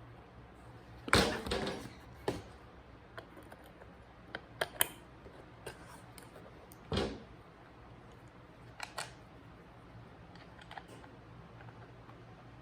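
Scattered clicks and short clatters of hand tools and small parts being handled during bench work, with the loudest clatter about a second in, a duller knock around seven seconds and a quick double click near nine seconds.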